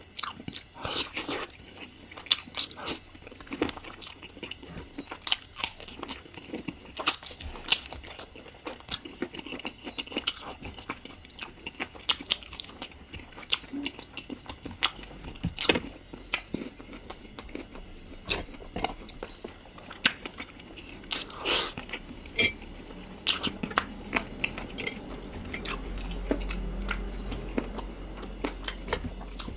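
Close-miked eating of chicken curry: steady, irregular chewing and biting with sharp crunches and wet mouth clicks.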